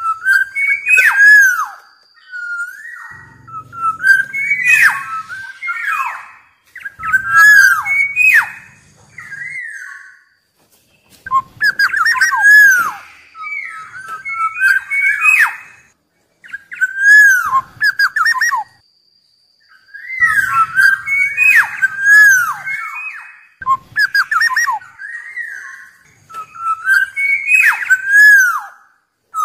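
Black-naped oriole calling: fluty whistled notes that slide down in pitch, with harsher scratchy notes among them, in bursts of about two to three seconds separated by short pauses.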